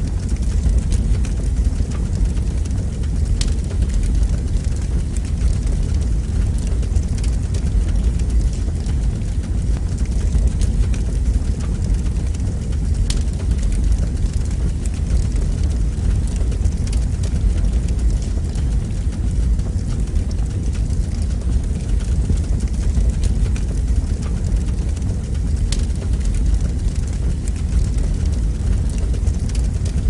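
Fire burning in a fireplace: a steady low rumble of flames with a few sparse, faint crackles.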